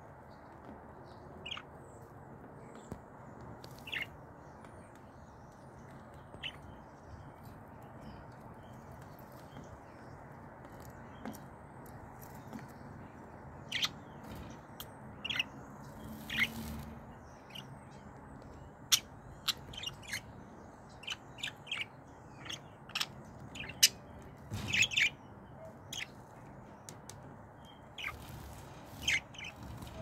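Pet budgerigars chirping in short, sharp calls, sparse at first and coming thicker and faster in the second half.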